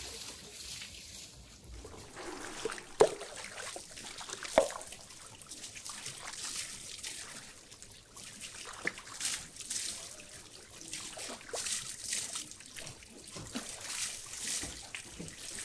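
Water trickling, dripping and splashing as wet mullet roe sacs are rinsed and handled on wooden boards over water, with two sharp knocks a few seconds in.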